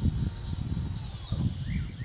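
Outdoor ambience: a low, uneven rumbling noise, with a few short bird chirps near the end.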